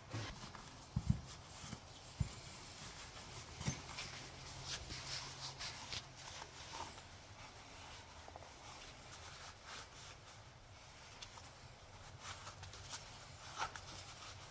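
Faint rubbing and handling noises as a microfiber towel wipes spilled oil off a black plastic part of a vacuum pump, with scattered light knocks and clicks.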